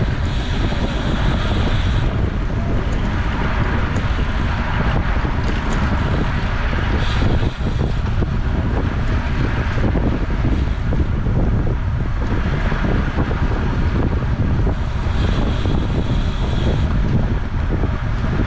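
Heavy wind noise buffeting the microphone of a road bike riding at speed, over a steady rush of tyre and road noise.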